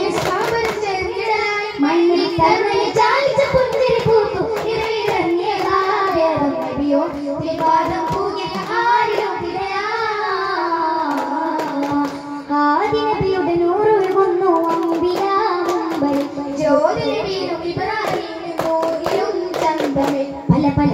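Young voices singing a melodic song together, accompanied by sharp strikes on hand-held daf frame drums, in the style of a Kerala Daff Muttu performance.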